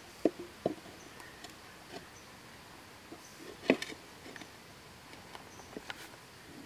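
Scattered sharp clicks and knocks of wood as sticks are handled and moved around a smoky campfire. Two come in quick succession at the start, the loudest a little past halfway, and another near the end, over a faint steady hiss.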